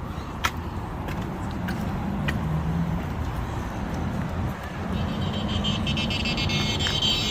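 Road traffic rumbling steadily. About five seconds in, a high whining ring joins it and holds.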